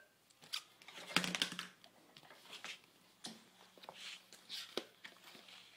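Scattered light clicks, taps and rustles of a paper greeting card being handled and opened by hand, with a short flurry about a second in.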